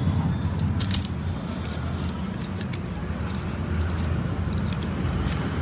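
Light metallic clinks and clicks of hand tools on motorcycle engine parts during clutch reassembly, a cluster of sharper clicks about a second in, over a steady low rumble.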